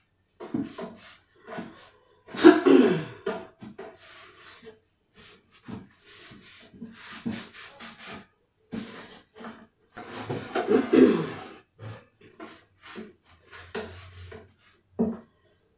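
Damp cloth rubbing and wiping a wooden nightstand in short, irregular strokes, with two louder, longer stretches of scrubbing.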